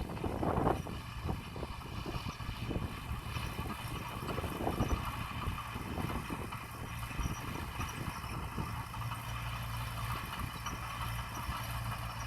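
Diesel engine of heavy earthmoving equipment running steadily, with irregular knocks and clatter over the first few seconds. It settles to an even idle near the end.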